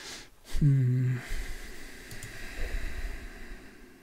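A man's short hummed 'mm' filler sound, held on one pitch for about half a second about a second in. A breath comes just before it, and faint low rumble and hiss follow.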